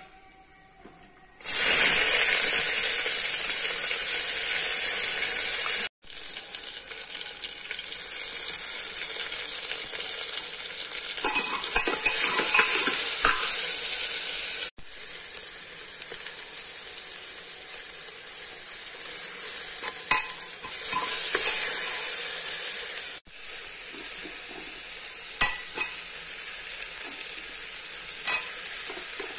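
Spices and chopped vegetables sizzling in hot oil in an aluminium pressure cooker, stirred with a metal spatula that scrapes and clinks against the pot now and then. The sizzle starts abruptly about a second and a half in and breaks off for an instant three times.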